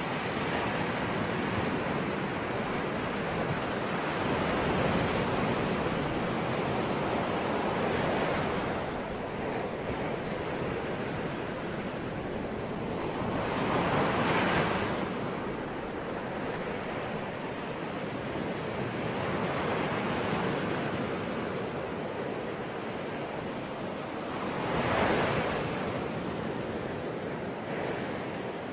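Ocean waves breaking on a shore in a steady wash of surf, with swells rising and falling every few seconds; two waves break most loudly, about halfway through and near the end.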